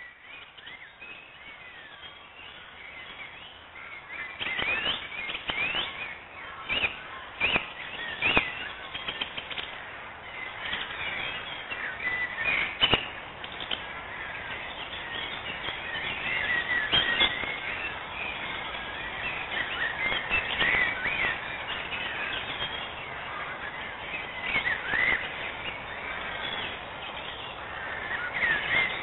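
Birds chirping and calling, a busy stream of short twittering calls, with a run of sharp clicks in the first half.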